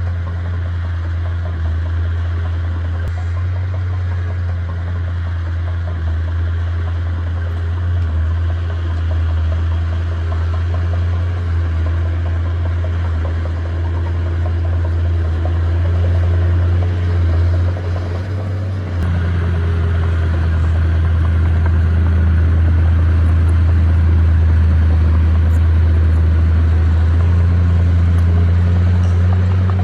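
A heavy earthmoving machine's diesel engine running steadily with a deep drone. It dips briefly about two-thirds of the way in, then runs louder.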